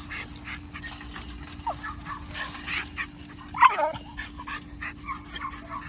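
Tricolor American pit bull terrier puppy whining and yipping amid scuffling clicks, with one loud falling cry about three and a half seconds in. A low steady hum runs underneath.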